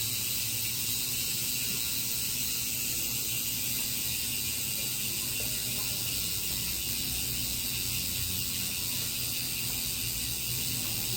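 Speedone bicycle hub freewheeling as the wheel coasts, its pawls ratcheting in a fast, steady buzz of clicks.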